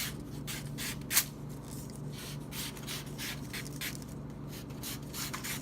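A freshly sharpened VG10-steel pocket knife slicing through a paper envelope: a run of short, scratchy strokes, the sharpest about a second in, over a steady low hum.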